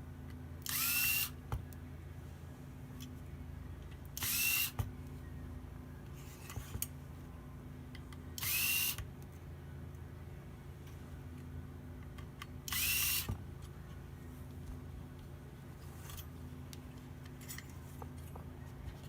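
Small electric screwdriver running in short bursts, four times about four seconds apart, each burst ending in a brief rising whine. It is typical of small laptop screws being turned one after another. Faint clicks fall between the bursts.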